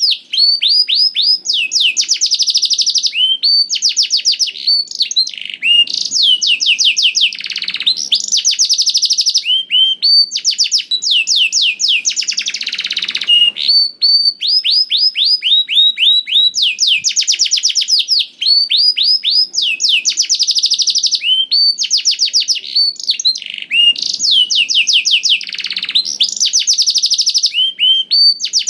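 Canary singing nonstop: rapid trills of repeated high, downward-sweeping notes, switching to a new phrase every second or so.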